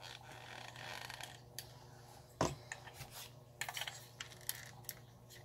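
Handling noise from a small diecast toy garbage truck: a soft rustle of fingers on it, then a sharp click about two and a half seconds in, followed by a few lighter clicks and taps of hard plastic and metal parts.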